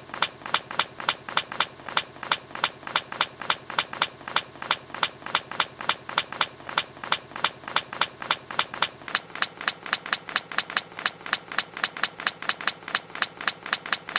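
A hedgehog's sneeze repeated in a rapid loop, short sharp sneezes at about four a second, speeding up slightly about nine seconds in.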